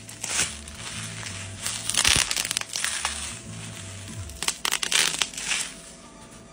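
Clear plastic packaging crushed and crumpled by hand, in several irregular bursts of crackling with a few sharp clicks about four to five seconds in.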